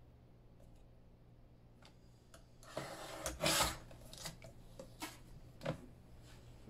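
A paper trimmer's sliding blade drawn down its rail, slicing through cardstock in one rasping stroke of about a second, a little under three seconds in. A few light clicks and taps follow as the cut paper is handled.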